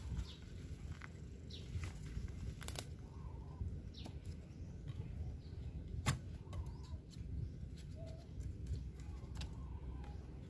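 Outdoor ambience: a low steady rumble with scattered short bird chirps and a few sharp clicks.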